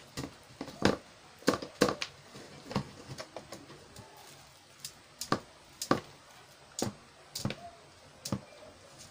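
Stainless steel mesh strainer tapped and knocked against a basin while sifting superworm bedding: a run of sharp, irregular taps and knocks, loudest in the first two seconds and sparser toward the end.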